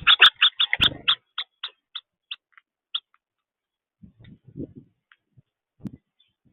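House finch giving a quick run of short, high chirps that slow down and fade over about three seconds. A few soft low knocks and taps follow near the end.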